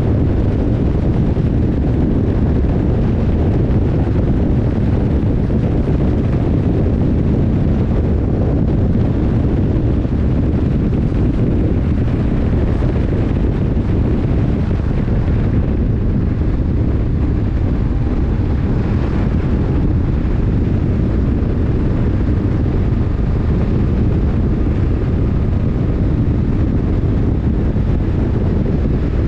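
BMW R 1150 R's flat-twin boxer engine running steadily while riding, mixed with wind rushing over the microphone.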